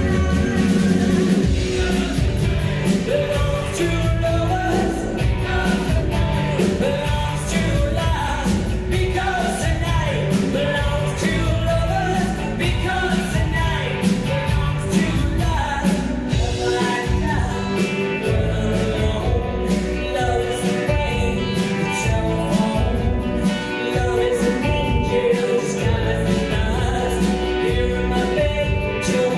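Live rock band playing a song: sung vocals over electric and acoustic guitars, bass guitar and drums, heard from the audience seats in the hall.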